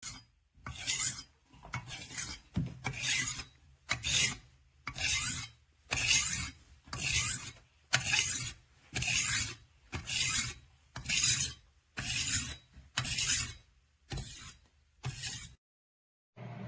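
Knife edge being sharpened on a rolling knife sharpener's abrasive disc: a steady run of scraping back-and-forth strokes, about one a second, that stops shortly before the end.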